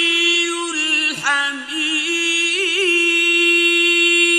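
A male Qur'an reciter chanting in the ornate mujawwad style, drawing out long held notes with quick wavering ornaments. The voice dips briefly about a second in, then settles into another long sustained note.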